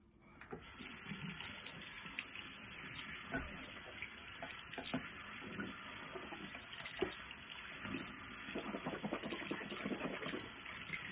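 Bathroom tap running into a sink, starting about half a second in, with irregular splashing as water is scooped up to rinse the face.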